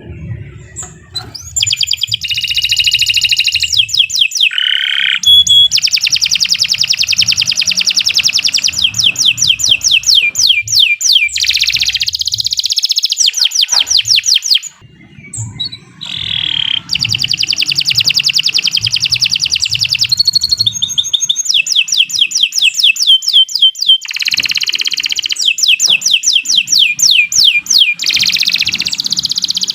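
Domestic canary singing a long, loud song of fast trills and rolling repeated notes, broken by one short pause about halfway.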